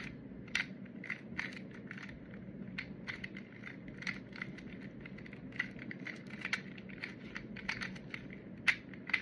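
A plastic 2x2 Rubik's cube turned quickly by hand through the R, U′, R′, F finger-trick sequence over and over, its layers clicking and clacking a few times a second at an uneven pace, with one louder clack near the end.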